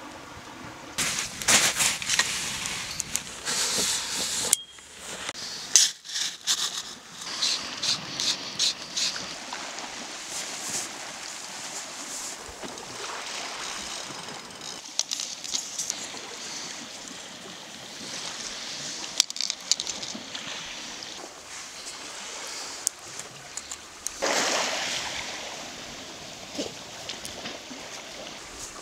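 Small waves washing on a beach, with a run of sharp crackles and snaps in the first ten seconds or so, and a louder rush of surf about 24 seconds in.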